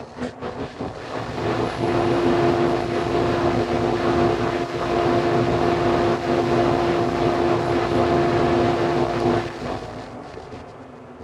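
Rockler 1250 CFM wall-mount dust collector starting up, coming up to speed over about two seconds, then running with a steady hum at about 85 decibels. Near the end its sound drops away.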